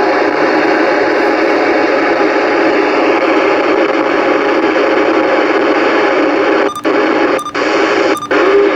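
Uniden Bearcat BC-980SSB CB radio's receiver playing steady band static and hiss on an empty channel while waiting for an answer to a radio check. Near the end the static cuts out briefly three times, less than a second apart.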